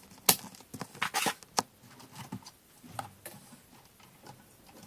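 Sharp clicks and knocks of computer hardware being handled in a server case. A quick run of them comes in the first second and a half, then a few fainter ticks come around three seconds in.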